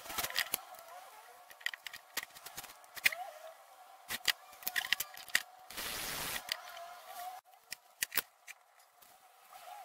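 Wooden pieces handled and set down on a wooden workbench: scattered clicks and knocks, with a short rushing burst of noise about six seconds in.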